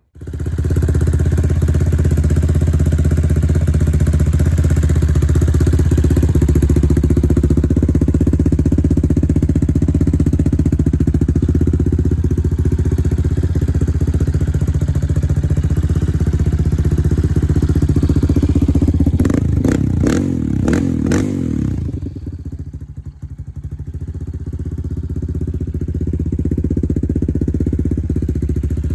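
Yamaha Raptor 700R ATV's single-cylinder four-stroke engine catching and running steadily. About twenty seconds in it is blipped several times in quick succession, then it drops back to a quieter, lower idle.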